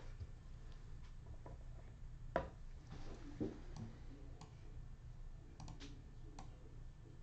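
Faint scattered clicks and light knocks over a low steady hum, the sharpest click about two and a half seconds in.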